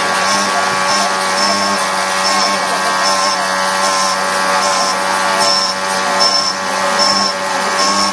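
Automatic key-making machine running, its spindles giving a steady multi-tone whine. Short high-pitched bursts repeat about every two-thirds of a second.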